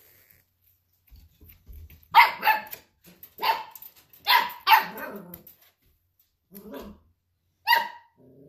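A puppy barking: about six short, sharp barks starting about two seconds in, several coming in quick pairs, with lower growly grumbles between them. It is play barking from a pup down in a play bow.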